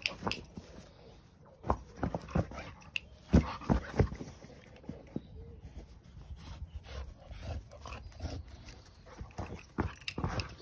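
A boxer dog playing with a giant tennis ball on grass: irregular knocks and thuds as the dog noses, mouths and pushes the ball, with the dog panting between them.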